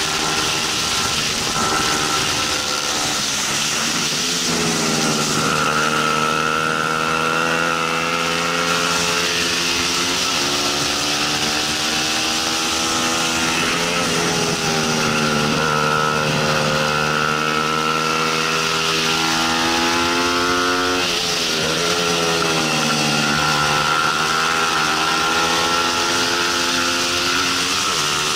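Bajaj Pulsar 200 NS single-cylinder four-stroke engine at full race pace, heard from the bike itself: the revs climb through the gears and drop back for the corners several times, over a steady rush of wind.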